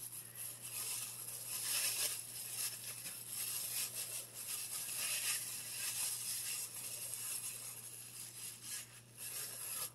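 Thin plastic bag crinkling and rustling as it is wrapped and tucked around the head over freshly dyed hair. The rustle comes in uneven surges and stops abruptly at the end.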